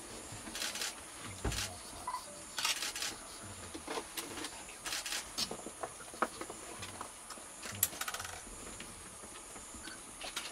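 Forest field ambience: a steady high hiss with scattered short clicks and brief chirps throughout.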